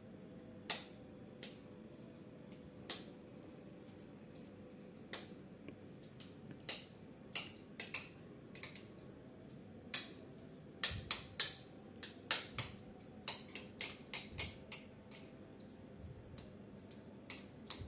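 Tofu being mashed with a utensil in a plastic bowl: irregular clicks and taps of the utensil against the bowl, coming quicker about ten seconds in.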